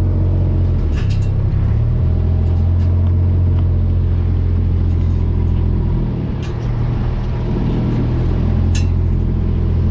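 Kubota side-by-side's engine running steadily at low speed, heard from inside its cab. Its note shifts about a second in and again about six seconds in, with a few short clicks and rattles.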